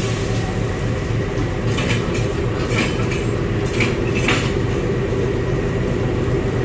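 Diesel locomotive engine running with a steady drone as the locomotive moves slowly up to a passenger coach to be coupled. Several short metallic clinks come around the middle.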